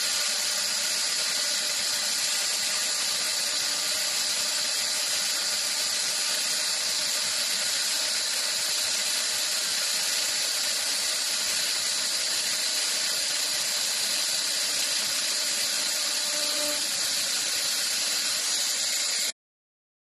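CNC wood lathe running: a steady high hiss with a high-pitched whine over it, unchanging throughout, cutting off abruptly near the end.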